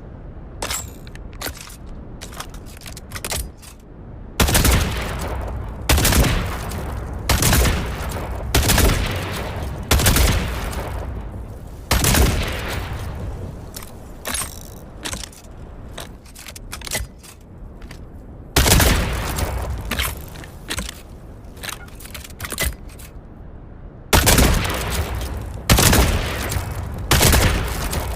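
Exploding-crossbow sound effect: about a dozen loud, sudden blasts, each dying away over a second or so. They come in runs, with quieter stretches of small clicks and rattles between them.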